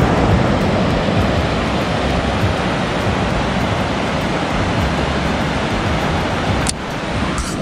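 Loud steady rushing noise, strongest and most uneven in the low end, with a single sharp click near the end; it cuts off abruptly.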